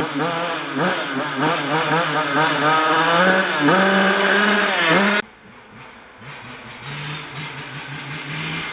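2003 Yamaha YZ85 two-stroke dirt bike engine with an FMF Shorty exhaust being revved repeatedly, the pitch climbing and falling with each blip. About five seconds in the sound drops abruptly to a much quieter, steady engine idle.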